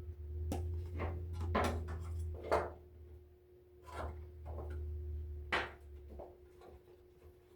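Inner parts of a Mainstays 3D electric stove heater being handled during its teardown: a string of irregular clicks and knocks, the sharpest about two and a half and five and a half seconds in, over a low rumble that stops about six seconds in.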